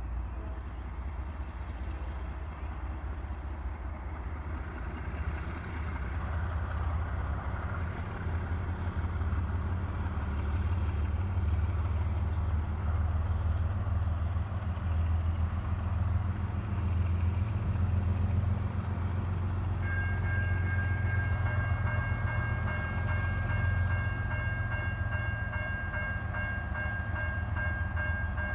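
Diesel freight locomotives, a GE ES44AH leading an EMD SD70M, rumbling at low speed as they draw closer, getting gradually louder. A steady high ringing tone joins about twenty seconds in.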